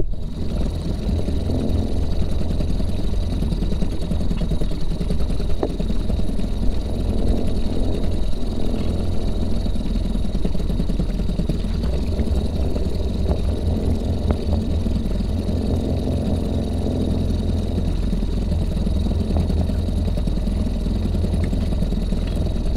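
Small boat's outboard motor running steadily at slow trolling speed, a low drone with a thin steady high whine above it.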